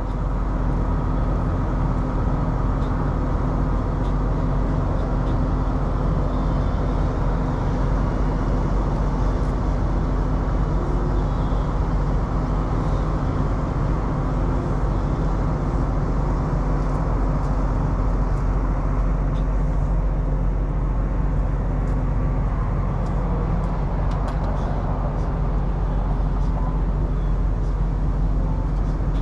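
Heavy truck diesel engine idling steadily, a constant low rumble, with a few faint clicks in the second half.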